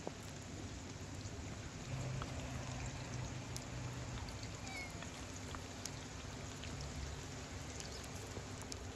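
Charcoal fire burning under a cooking grill: a soft steady hiss with scattered small crackles and ticks.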